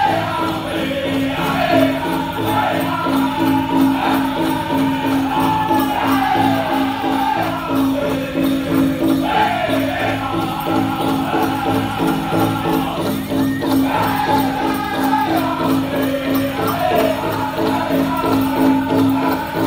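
Powwow drum group singing a chicken dance song over a steady beat on the big drum. The voices start high and fall in each phrase, with dancers' bells jingling.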